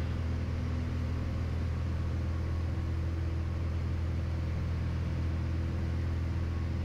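Piper Turbo Arrow's turbocharged six-cylinder engine and propeller droning steadily in cruise power, heard inside the cockpit.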